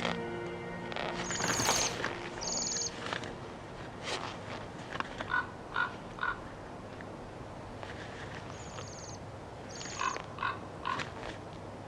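Male capercaillie displaying. Short, high, rasping phrases are each followed by three clipped clicking notes, and the cycle comes twice. Music fades out in the first second or so.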